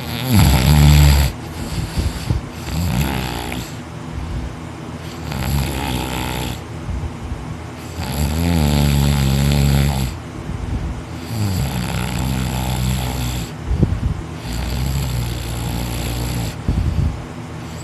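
A person in deep sleep snoring heavily through an open mouth: about six long snores, one every three seconds or so, each lasting a second or two.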